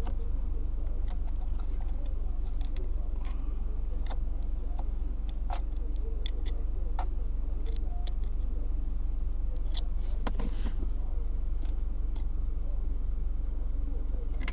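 Mitsubishi Lancer Evolution X engine idling steadily as a constant low hum, with scattered sharp clicks and taps from plastic interior trim and a clip being worked by hand.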